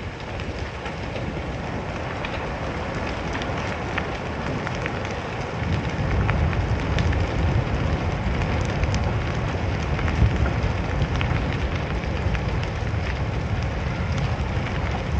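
Large timber-frame barn burning fully engulfed: a steady rushing noise of the fire with many scattered crackles and pops, growing a little louder about six seconds in, and one sharper crack about ten seconds in.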